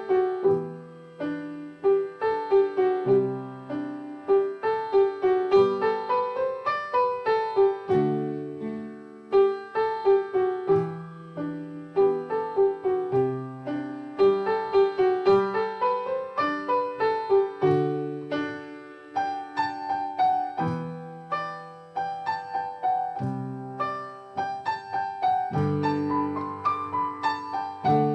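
Solo piano playing a gentle, continuous piece: runs of notes that rise and fall over low bass notes struck every two to three seconds.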